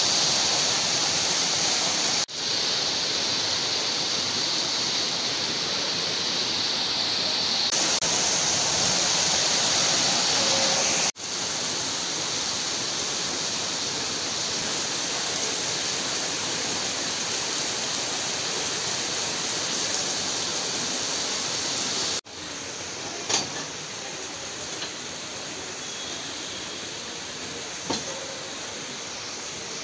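Very heavy rain falling in a steady hiss, broken off briefly at a few points. The last third is softer, with a couple of sharp ticks.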